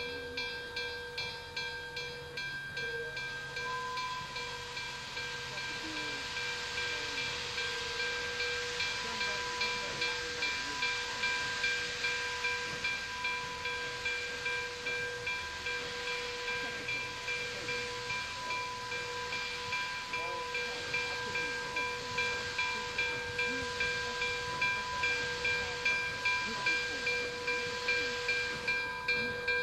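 Steam locomotive bell on Nickel Plate Road 2-8-4 Berkshire No. 765 ringing in a steady, even rhythm over a continuous hiss of steam, growing slowly louder.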